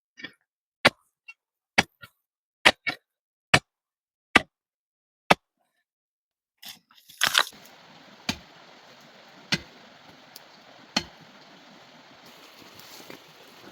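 Sharp knocks of a digging tool striking rock, roughly one a second, with a louder cluster of strikes about seven seconds in and three more spaced knocks after it.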